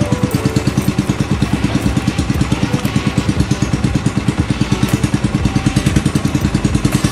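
Small motorboat's engine running steadily, a fast, even putter of about eight or nine beats a second.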